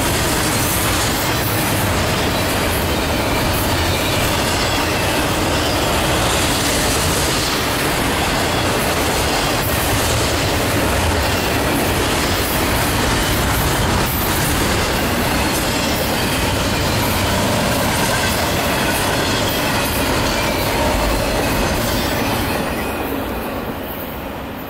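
Double-stack intermodal freight train's container well cars rolling past: a steady, loud rumble and clatter of steel wheels on the rails, with faint wheel squeal at times. The sound fades over the last few seconds as the end of the train goes by.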